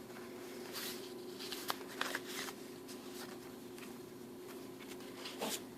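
Paper and card rustling and soft handling clicks as a handmade junk journal's pages, pockets and tags are moved, over a faint steady hum.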